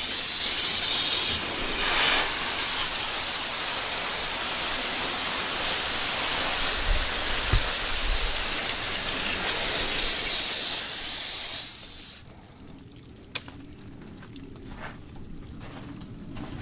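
Water hose spraying onto a fiberglass boat hull, rinsing off soap suds. It is a steady hiss that cuts off about twelve seconds in, followed a second later by a single sharp click.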